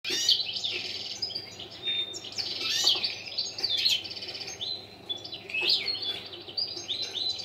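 Caged European goldfinch singing: a continuous twittering song of fast chirps, quick trills, buzzy runs and short rising notes.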